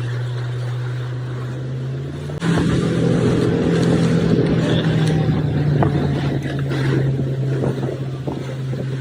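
Engine running steadily. About two and a half seconds in it picks up: louder, slightly higher in pitch, with a rushing noise over the drone.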